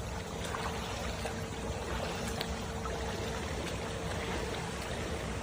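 Pool water sloshing and splashing steadily as a swimmer swims freestyle with a relaxed, light kick. A steady hum runs underneath.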